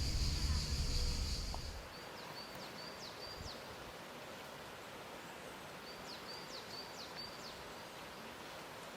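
A songbird sings a short phrase of high chirps and quick downward-sweeping notes, twice, over quiet outdoor ambience. Before the bird, a steady high-pitched buzz over a low rumble cuts off about two seconds in.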